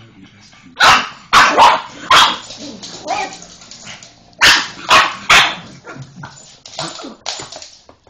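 Pug barking excitedly at a vacuum cleaner: a quick run of loud, sharp barks about a second in, then another around four and a half seconds in, with smaller yaps between and after.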